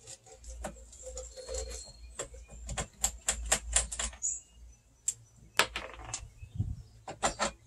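Sharp mechanical clicks from hands working the handlebar mounting of a Snapper self-propelled walk-behind mower. They come irregularly at first, then in a quick run of about a dozen, about four a second, around the middle, with a few more and a dull thump near the end.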